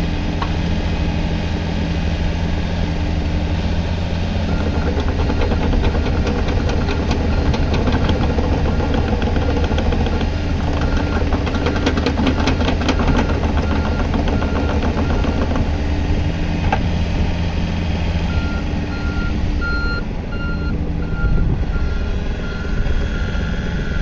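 Komatsu PC55MR-3 midi excavator's diesel engine running under load, with a rapid rattling clatter through the middle as the machine moves. In the last few seconds a travel alarm beeps steadily, about twice a second.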